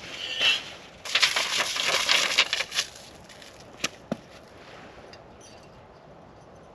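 Crunching footsteps on frozen, snow-dusted leaf litter for about two seconds, then two sharp clicks close together, then quiet ground noise.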